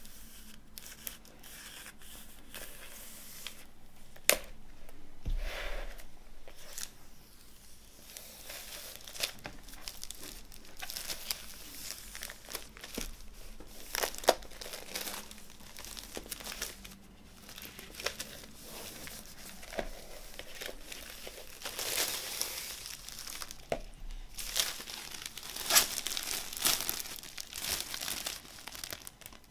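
Clear plastic shrink wrap being torn and peeled off a vinyl LP jacket and handled, crinkling throughout with a few sharp snaps.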